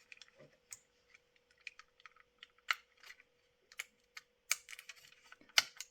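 Irregular light clicks and taps of the clear plastic glazing insert being lifted and worked loose from a die-cast model bus body, with the loudest clicks near the end.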